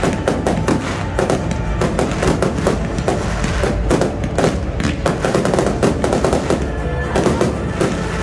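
Fireworks display: many aerial shells bursting in quick succession, with music playing at the same time.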